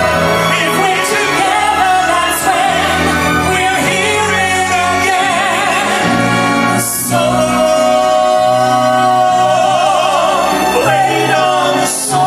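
A man and a woman singing a musical-theatre duet with strong vibrato, backed by a live orchestra. The voices break briefly about seven seconds in, then carry a long held note.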